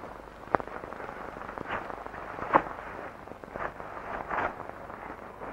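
Scattered faint clicks and crackles over a steady hiss, with one sharp click about half a second in.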